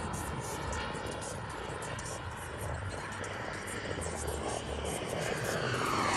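Twin model jet turbines of a 1/4-scale YAK-130 RC jet, a distant whine that grows steadily louder over the last couple of seconds as the jet approaches.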